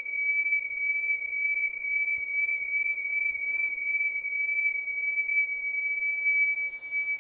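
Small electronic siren sounding a continuous high-pitched beep while it is whirled in a circle on a cord, its pitch and loudness wavering up and down with each turn: the Doppler shift as it swings toward and away from the listener.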